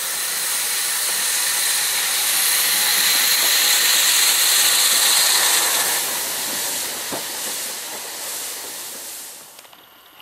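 Narrow-gauge steam locomotive passing close by, giving off a loud, steady hiss of steam that swells for a few seconds and then fades. Near the end the hiss drops away sharply to a quiet background.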